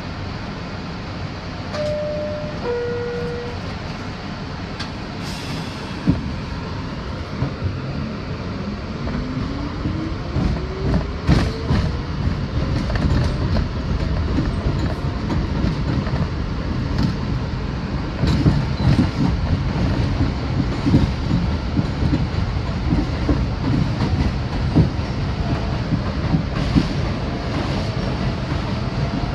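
Bombardier R62A subway car: a two-note falling door chime a couple of seconds in, a sharp knock about six seconds in, then the train pulling away, its Westinghouse DC traction motors whining up in pitch under camshaft control, with wheels clacking over the rail joints.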